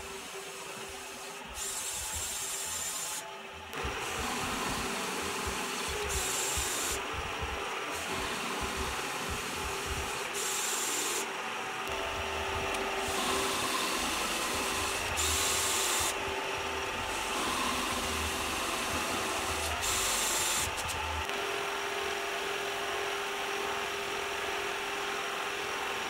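Metal lathe running while a cordless drill rigged to the top-slide handwheel drives the feed, turning a taper on aluminum round stock. A constant machine hum runs throughout, and a higher sound comes in short stretches five times, about every four to five seconds.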